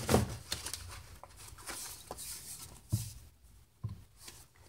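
Stiff sheets of boiled, dried watercolor paper being handled and turned: scattered rustles and light taps, with a soft knock about three seconds in and another near four.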